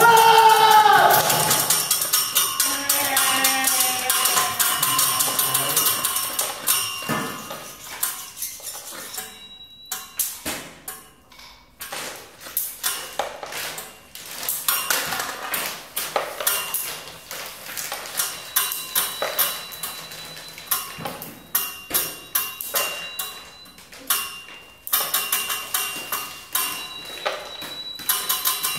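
Irregular taps and knocks on hard surfaces, played as improvised percussive sound art, some strikes leaving a high ringing tone that hangs on in the second half. A pitched sound slides downward at the very start.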